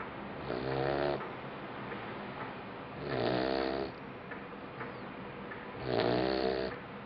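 Labrador retriever puppy snoring in deep sleep: three pitched snores, each under a second long, about three seconds apart.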